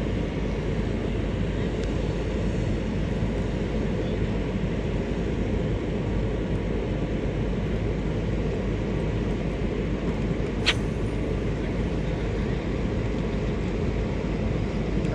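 Steady low outdoor rumble, with a single sharp click about two-thirds of the way through.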